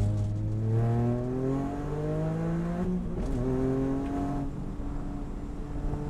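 Toyota GR Yaris's turbocharged three-cylinder engine accelerating, its pitch climbing, with a gear change about three seconds in, then running at a steadier pitch near the end.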